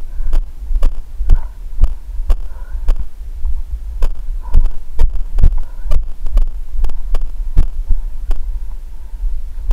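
A runner's footfalls jolting a body-worn action camera: dull thumps about twice a second over a steady low rumble.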